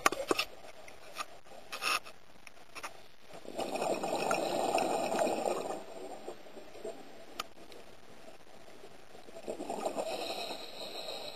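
Scuba regulator exhaust bubbles: two long rushing exhalations about six seconds apart, the first the louder, with scattered sharp clicks and taps in between.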